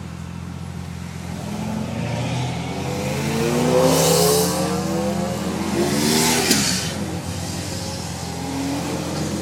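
Nissan 300ZX V6 with a Specialty Z aftermarket exhaust pulling away under moderate throttle, its engine pitch rising twice as it accelerates.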